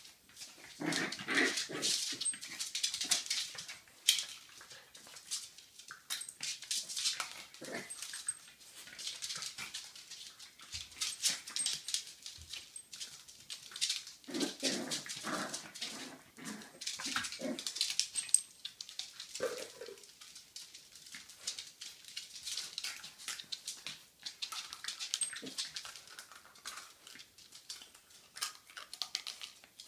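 Two dogs, a Jack Russell terrier puppy and a larger dog, play-fighting: claws click and scrabble on a hard tiled floor throughout, with a few short yips and whimpers in bursts.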